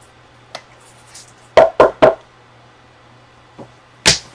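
Short sharp knocks, three in quick succession about a second and a half in and one louder one near the end, from trading cards and their holders being handled and set down on a table.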